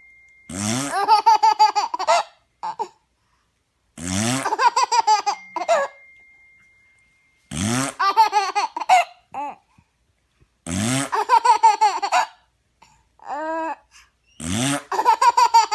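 Baby laughing hysterically in five bouts of rapid, pulsing giggles, each about a second and a half long, with short silences between.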